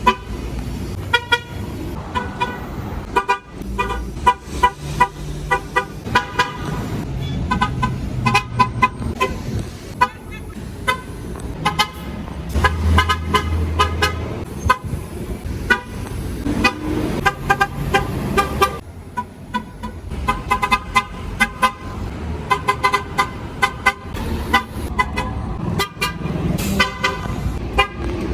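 MTA city bus horns honking again and again, mostly short toots with some longer blasts, over the low rumble of engines.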